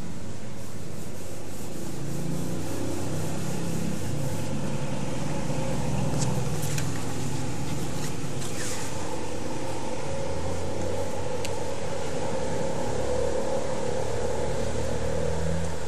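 Cotton balls rubbing machine oil across printed bond paper to turn it translucent, over a steady background hum.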